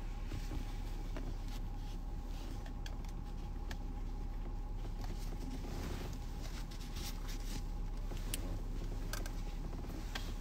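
Steady low rumble with scattered short clicks and rustles from a phone being handled.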